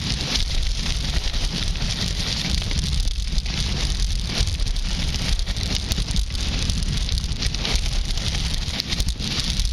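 Skis sliding and scraping over groomed snow in a continuous crackling hiss, with wind rumbling on the microphone underneath.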